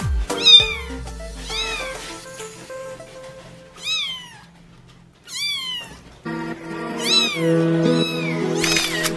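A kitten meowing about six times, high, thin meows that rise then fall, one every second or so, over background music.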